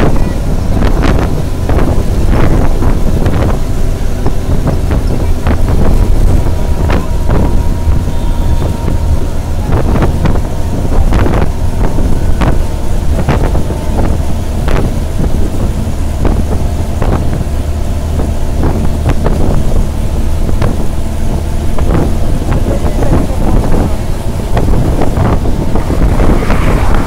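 Wind buffeting the phone's microphone from a vehicle travelling at speed, over a low steady road and engine rumble with a faint steady whine.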